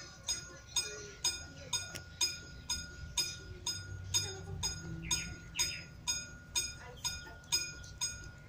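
Westinghouse level-crossing warning bell striking steadily, about two and a half strokes a second, each stroke ringing at the same pitch over a steady high tone: the crossing's warning that a train is approaching.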